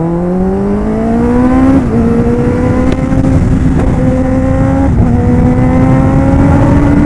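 Kawasaki Ninja ZX-10R inline-four engine accelerating hard, its pitch climbing steadily and dipping briefly at each upshift, about three times, over a rush of wind.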